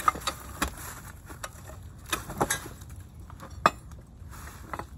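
Scattered metallic clanks and knocks as the cast-iron block of an air-cooled Wisconsin V4 engine is tipped over and tools are moved about. The loudest knock comes about three and a half seconds in.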